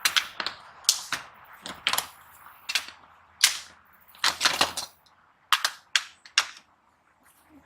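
PVC sewer cleanout cap being screwed in and tightened: a run of sharp, irregular plastic clicks and knocks, thinning out over the last couple of seconds.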